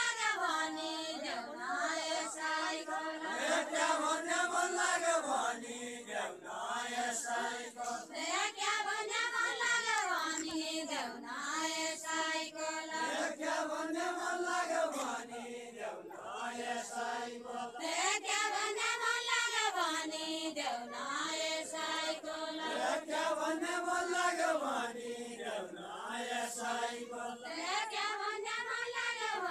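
Deuda folk song sung by a group of villagers without instruments, their voices together in long phrases that rise and fall, with short breaks between phrases.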